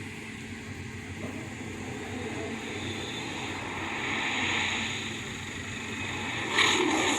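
A steady rushing noise that swells and eases off midway, then the MGM lion's roar sound effect breaks in loudly near the end.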